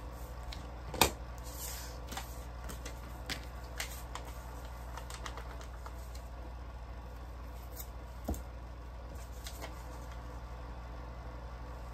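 Tools and paper being handled on a cutting mat: a sharp clack about a second in and a smaller one near eight seconds, with light ticks and paper rustles between, over a steady low hum.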